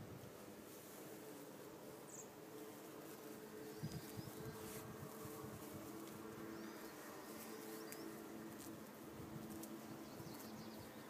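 Bees buzzing around the blossoms: a faint, steady hum that drifts up and down in pitch, with a few short high chirps in the background and a couple of soft knocks about four seconds in.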